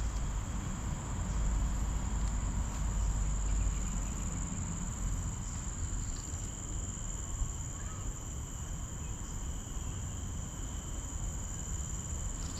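Insects shrilling in a steady, continuous high-pitched drone, over a low rumble.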